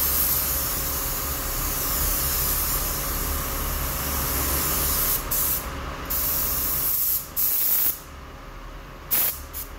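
Air-fed gravity-cup spray gun hissing steadily as it sprays paint onto a bus panel. After about five seconds it is cut off and triggered in a few short bursts, stops about eight seconds in, and gives one last short burst near the end.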